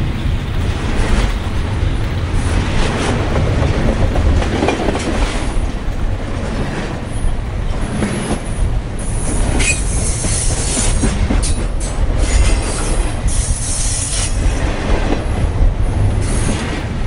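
HO scale model trains running on the layout's track: a steady rumble with irregular clicks from the wheels and rails, more of them in the second half.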